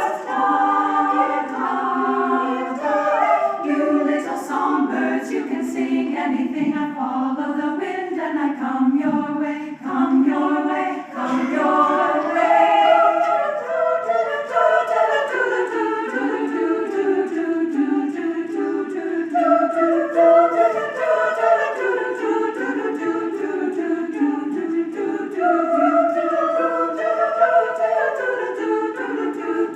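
Choir singing in several voice parts at once, the lines moving in steady phrases.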